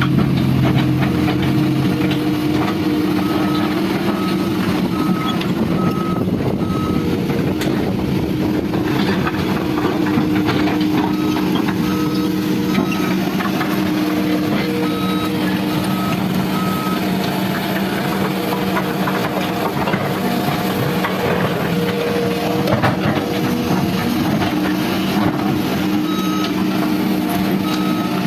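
Diesel engine of heavy earthmoving machinery running steadily, with a reversing alarm beeping about twice a second in several separate stretches.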